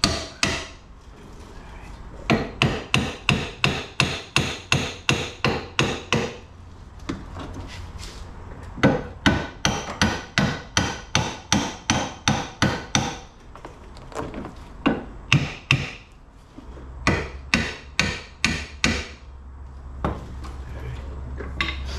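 Hammer blows on metal, tapping a suspension part into place. They come in runs of quick, evenly spaced strikes, about three a second, each with a short metallic ring, and the runs are broken by brief pauses.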